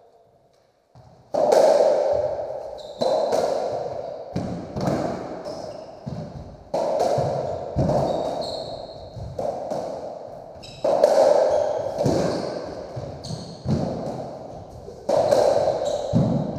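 Racketball rally in a squash court: the ball is struck by the rackets and hits the walls, making sharp, echoing smacks about once every second or so, starting about a second in.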